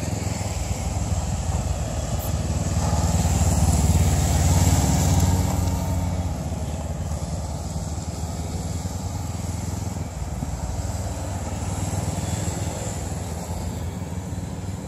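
Motorcycle engines running and revving as bikes ride around a cone practice course. The sound swells to its loudest about four to five seconds in, then settles to a steadier, quieter engine sound from several bikes.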